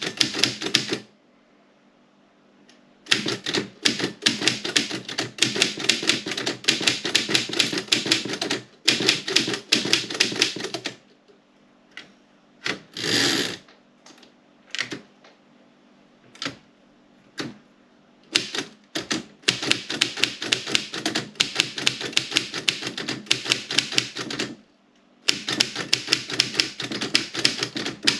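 Woodstock No. 5 manual typewriter being typed on in fast runs of sharp keystrokes, several a second, broken by short pauses and a stretch of slower single strokes. About thirteen seconds in there is one brief smooth sliding sweep.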